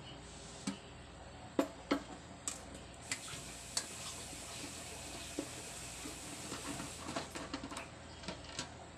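Screwdriver turning screws out of the plastic feet on a Union electric rice cooker's metal base: scattered small clicks and light scraping, coming most quickly near the end.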